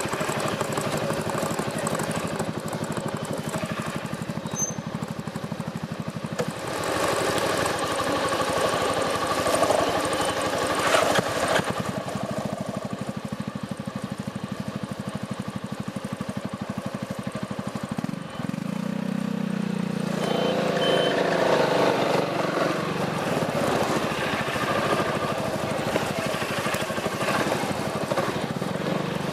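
Piaggio MP3 400 three-wheeled scooter's engine running through an aftermarket Akrapovič exhaust. It gets louder from about a quarter of the way in, dips briefly past the middle, then rises again in pitch and level as it is revved.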